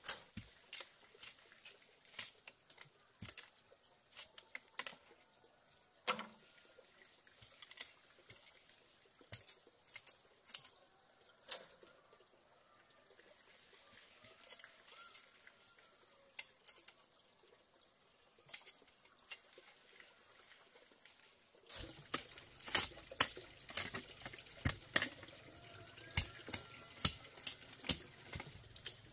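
Water splashing and dripping in many short, irregular splashes. After about twenty seconds a low steady hum joins and the splashes come louder and closer together.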